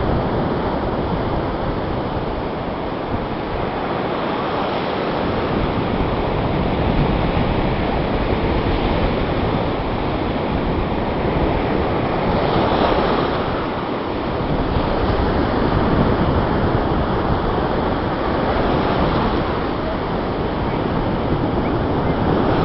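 Sea waves breaking and washing on a sandy beach, a steady surf that swells and eases every few seconds, with wind buffeting the microphone.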